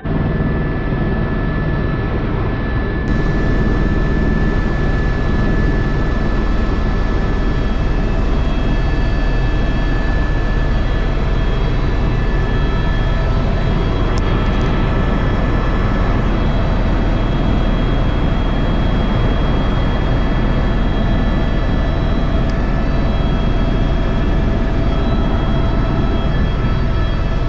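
Tour helicopter in steady flight: constant engine and rotor noise with a steady whine over it.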